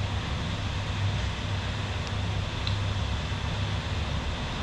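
Heavy rain, heard muffled through a closed door as a steady hiss with a low rumble underneath, and a few faint clicks.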